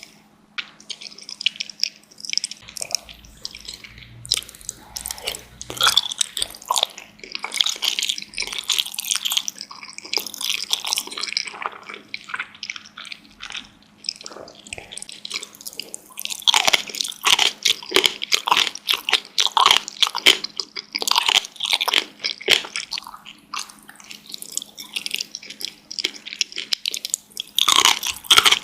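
A person chewing and biting dumplings: wet mouth sounds with many short, irregular clicks, growing busier and louder about halfway through.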